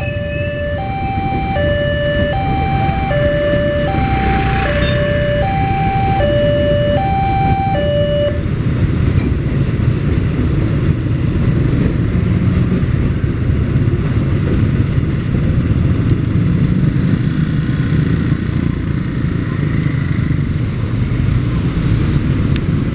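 Level-crossing warning bell sounding two alternating tones, low then high, about once every second and a half, stopping about eight seconds in. Under it, and after it, the steady rumble of a passenger train rolling past the crossing and of the waiting road traffic.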